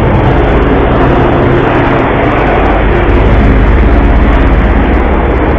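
Boat engine running steadily and loudly under a dense rush of wind and sea noise.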